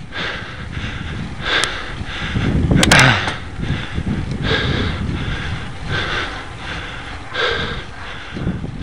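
Cyclist breathing hard while climbing a steep hill in the lowest gear, a heavy breath about every second and a half, over a steady low rumble. A short cluster of sharp clicks about three seconds in is the loudest moment.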